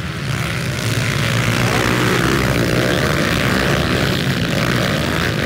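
A pack of dirt bikes racing by at full throttle, several engines revving together and getting louder about half a second in.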